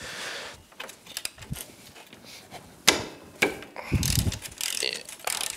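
Hand ratchet clicking as it spins off the 19 mm castle nut on the steering ball joint, with a couple of sharper metal clicks and a dull knock about four seconds in.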